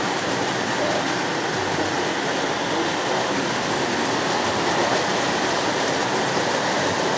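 O gauge tinplate model trains running steadily around their track, a continuous even running noise over the hum of a busy exhibition hall.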